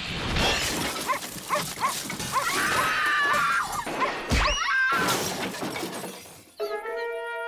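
Cartoon sound effects: a loud, noisy crashing clatter mixed with short yelping cries. About six and a half seconds in it gives way to a held musical chord.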